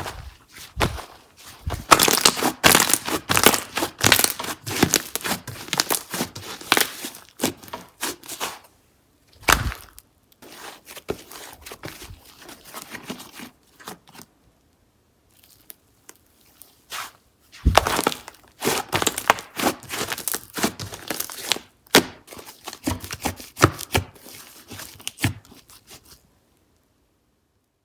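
Hands squishing and stretching slime, making dense runs of crackling pops and clicks in several bursts with short pauses, stopping shortly before the end.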